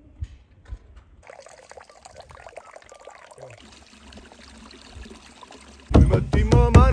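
Water pouring from a pipe spout, a steady splashing trickle. Near the end, loud music with regular drum hits suddenly cuts in.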